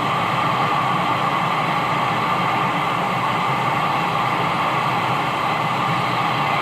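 CB radio receiver giving a steady hiss of static on an open channel between transmissions, the background noise of long-distance skip reception.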